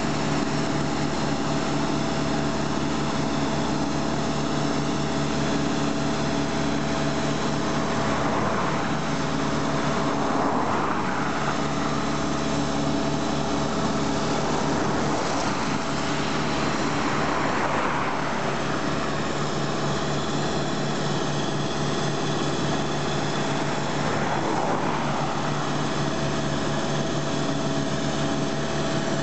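Engine of a road-construction machine such as an asphalt compactor or paver running at a steady speed: a constant drone with several held tones, and a hiss that swells and fades a few times.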